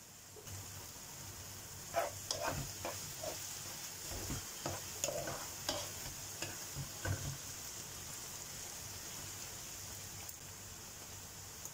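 Onion and tomato sauce sizzling in a stone-coated frying pan while a spatula stirs it, scraping and knocking against the pan from about two seconds in until about seven seconds in; after that the sizzle goes on alone.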